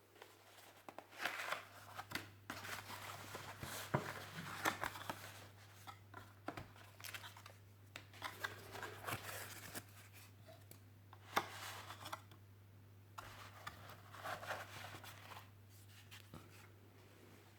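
Hands handling drone packaging and parts: irregular rustling and crinkling with many sharp clicks and taps, over a steady low hum.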